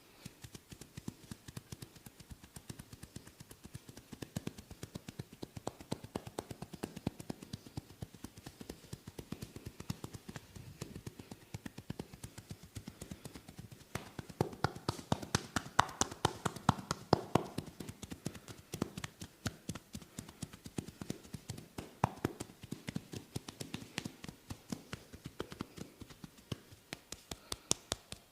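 Hands tapping rapidly on a person's skin in a percussive massage: a fast, even run of sharp taps that gets louder about halfway through.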